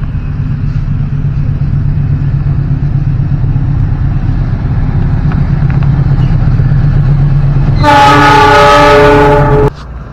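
Diesel locomotive approaching with a steady low engine drone, then sounding one long horn blast of nearly two seconds about eight seconds in, which cuts off suddenly.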